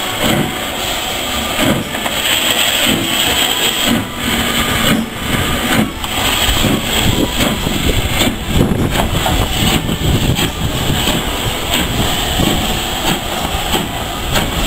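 LNER Class B12 4-6-0 steam locomotive passing close by at low speed, working with exhaust chuffs and hissing steam. Its tender and coaches roll past near the end.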